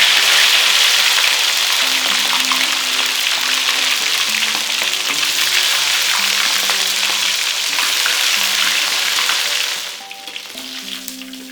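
Food frying in hot oil: a loud, dense sizzle with crackles that drops suddenly to a quieter crackling about ten seconds in.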